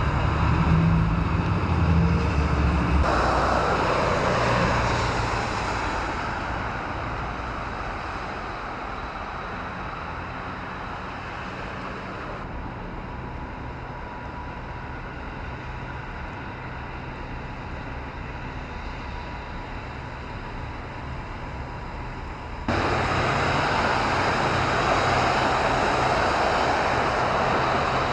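Road traffic: vehicles passing with engine rumble and a steady hiss of tyres and street noise. It fades down through the middle and then jumps abruptly louder again late on.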